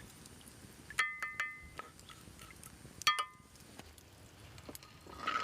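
Metal utensil clinking against cookware, each strike ringing briefly: three quick strikes about a second in, then two more about two seconds later.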